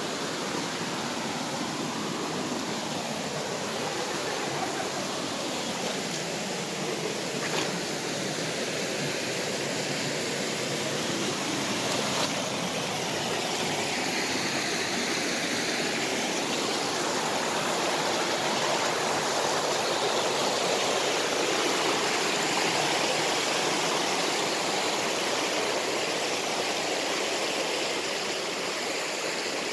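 A rocky mountain stream rushing over boulders and small falls: a steady hiss of flowing water, a little louder in the second half.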